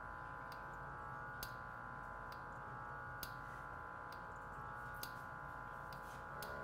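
NA5600 sodium analyzer draining its overflow cell during a flush cycle: a faint steady hum with a light tick about once a second.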